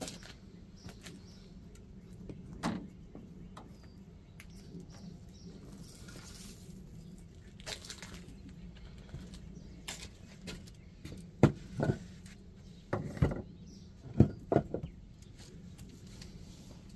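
A chunk of stone being handled and put down: scattered knocks, with a cluster of about seven sharp knocks and thumps in the second half, over a steady low background hum.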